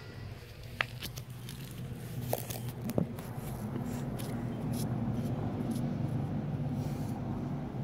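Phone handling noise: a few knocks and scrapes as the phone is moved and set down on the ground, then a low steady rumble.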